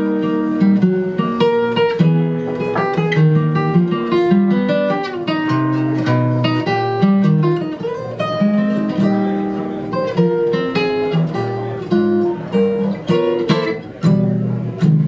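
Solo steel-string acoustic guitar played live, a quick flow of plucked single-note lines mixed with chords.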